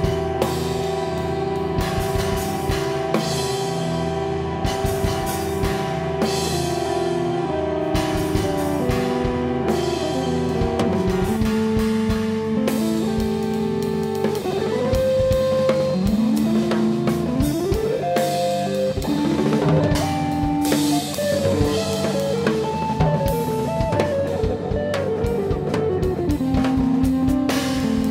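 Hollow-body electric guitar and drum kit playing live together: the guitar holds sustained chords, then from about halfway moves into a line of notes that slide up and down, over continuous drumming.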